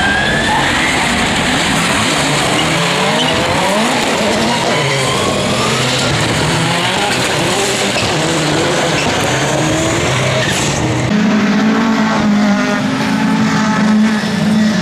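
Rallycross race cars' engines revving hard through a corner, the pitch rising and falling with throttle and gear changes. About eleven seconds in, a louder, steadier engine note takes over as a car comes close.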